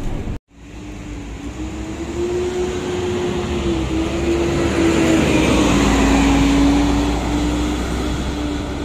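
Volvo B9TL double-decker bus, with its Volvo D9A engine and Voith DIWA automatic gearbox, pulling away and passing close by. A steady whine rises, then dips as the bus goes past about five to six seconds in, when the engine and road noise are loudest.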